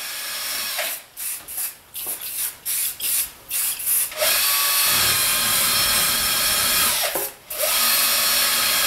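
Aerosol spray-paint can hissing, first in several short spurts, then in long steady sprays broken by a brief pause about seven seconds in. The can is nearly empty.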